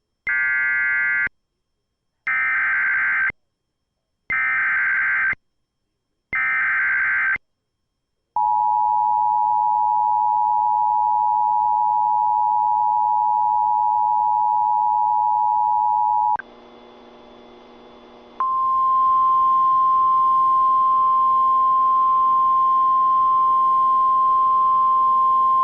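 Emergency Alert System tones on a radio broadcast: four short warbling data bursts of the SAME header, about a second each with a second of silence between. Then the steady two-tone EAS attention signal for about eight seconds, a short quieter pause, and a single steady tone of about 1 kHz, the NOAA Weather Radio warning alarm, running on to the end.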